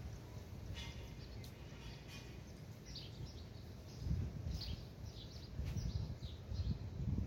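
Small birds chirping in short, repeated calls, starting about three seconds in, over a low, uneven rumble that swells twice.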